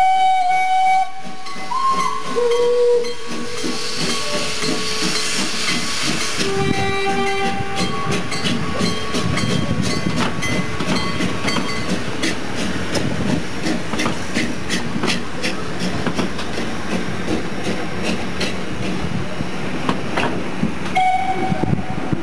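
Steam locomotive sounding its whistle in several short blasts, then running with a steady hiss of steam and a rapid clatter of wheels on rail joints; one more whistle blast comes near the end.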